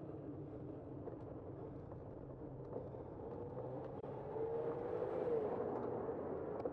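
Steady wind and road noise of a bicycle ride picked up by a bike-mounted camera, with a car growing louder about four seconds in, its faint hum rising and then falling.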